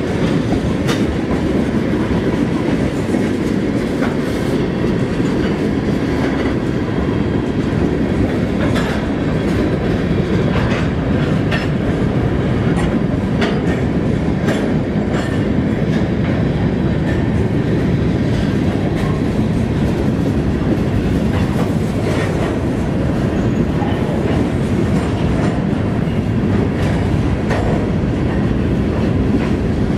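Mixed freight train of tank cars, autoracks and covered hoppers rolling past at close range. Its steel wheels make a steady loud rumble on the rail, with clickety-clack over the rail joints and many sharp metallic clicks.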